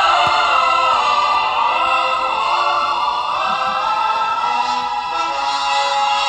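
Film opening music: a choir singing over sustained orchestral chords.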